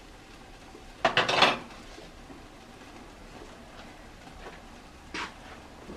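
A brief clatter of kitchenware about a second in, a wooden spoon set down on a ceramic spoon rest, then a single lighter knock near the end.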